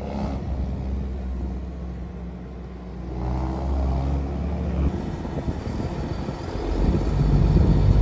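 Tractor engine running steadily as the tractor is driven across a yard. About five seconds in, the engine sound changes abruptly to a different low hum.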